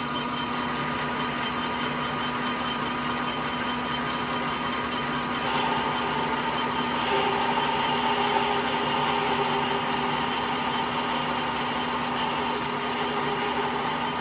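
A machine tool's motor running steadily while drilling out a cast iron thread insert in a pump impeller, dry without lubricant. About five seconds in the cutting sound joins and grows a little louder, with a thin high whine appearing later on.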